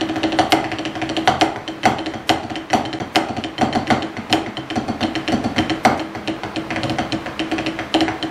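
Wooden drumsticks played on a Vater rubber drum practice pad: a fast run of sharp strokes with quick rolls between and a few louder accents.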